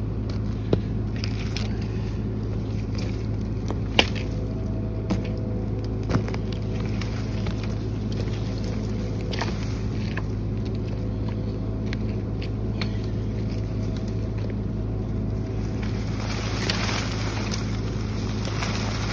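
Mini excavator engine running at a steady speed, with a few sharp cracks over it. The loudest crack comes about four seconds in.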